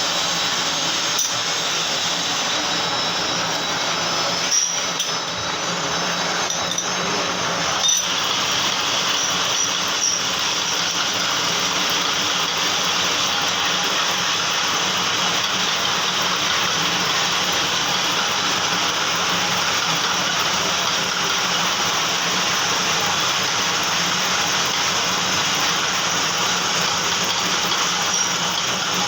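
Metal lathe running steadily while turning a mild steel bush, a constant machine drone with a faint steady whine. A few sharp clicks stand out in the first eight seconds.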